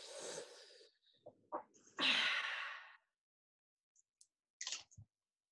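A man takes a noisy slurping sip, then lets out a long breathy sigh about two seconds in. A couple of faint clicks come near the end.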